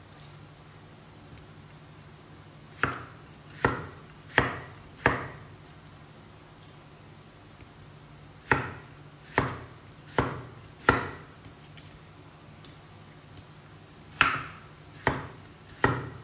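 Large kitchen knife chopping thick slices of raw potato into sticks on a round wooden chopping board: sharp knocks of the blade striking the board. They come in runs of about four, a little under a second apart, with pauses between the runs.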